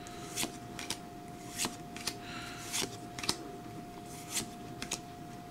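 Pokémon trading cards being slid one by one through the hand, a short soft swish or snap as each card is moved to the front of the stack, about once or twice a second.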